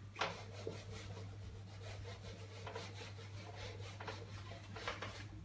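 Whiteboard eraser rubbing across a whiteboard in faint wiping strokes as a drawing is rubbed out, over a low steady hum.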